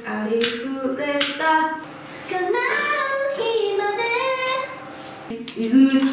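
A woman singing phrases of the lesson song unaccompanied, with held and gliding notes. There is a sharp tap or clap about a second in.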